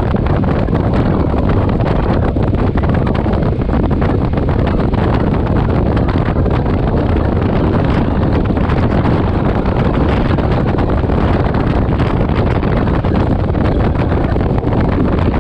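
A steady rush of riding wind on the microphone of a moving motorcycle, blended with the motorcycle running underneath.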